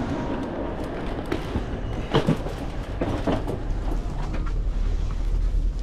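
Low rumble and hum inside a Shanghai maglev train carriage standing at the platform as passengers board, with a few faint voices and knocks. The rumble grows louder about two-thirds of the way through.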